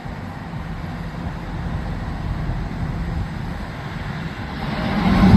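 Diesel engine of a large mobile crane running with a low rumble, revving up near the end as the lift begins.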